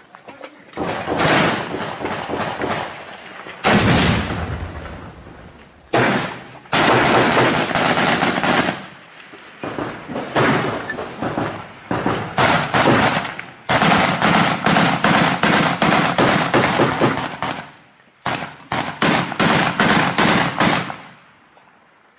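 Close automatic small-arms fire in long bursts of rapid shots with short pauses between them, stopping about a second before the end.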